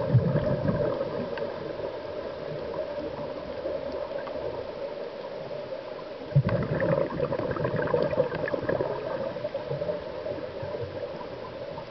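Scuba diver's exhaled breath bubbling out of the regulator underwater, in two bubbly rushes: one at the start and a longer one about six seconds in, with a quieter gap between.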